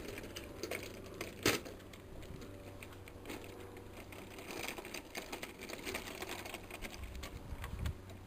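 Small rubber-tyred wheels of a wooden trolley rolling and rattling as it is pulled by its drawbar across paving and onto grass. The wooden frame and drawbar pivot clatter in quick small ticks, with one sharp knock about a second and a half in.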